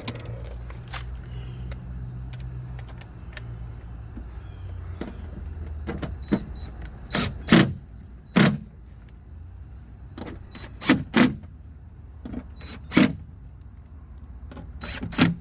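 Speaker mounting screws being driven into the door with a power driver: a steady motor hum for about the first seven seconds, then a run of sharp clicks and knocks as the screws seat.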